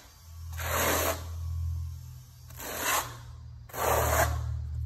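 Notched trowel scraping through thinset mortar on a concrete floor, combing it into ridges in three strokes: a longer one near the start and two shorter ones around three and four seconds in. A low hum runs underneath.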